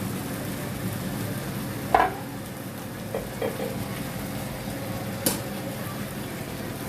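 Chicken pieces sautéing with ginger, onion and garlic, sizzling steadily in the pan. A cooking utensil stirs and turns the pieces, knocking against the pan about two seconds in, twice more a little later, and once sharply near the end.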